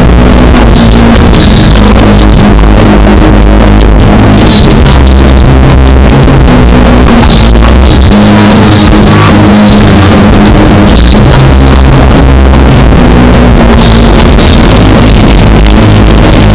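Live rock band playing, with electric guitar and a heavy, steady bass and drums, so loud that the recording is overloaded.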